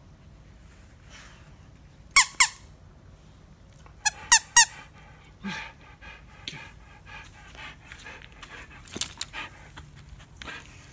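Squeaker in a plush duck dog toy: two short, high squeaks, then three more a couple of seconds later.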